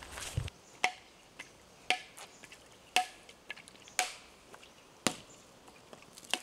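Husked coconut held in the hand and struck with a machete to crack it open: five sharp knocks about a second apart, each with a short hollow ring from the nut.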